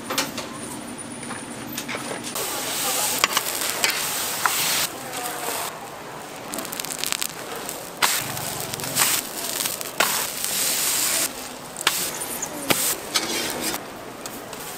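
Food frying in hot oil, sizzling, in several stretches that start and stop abruptly, with scattered clicks and knocks of cooking utensils.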